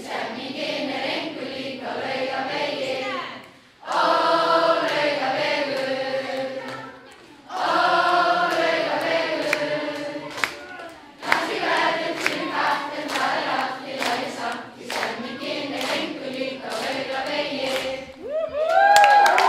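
A large crowd of schoolchildren and adults singing a song together, phrase by phrase with short breaks for breath, with hand claps in time during the second half.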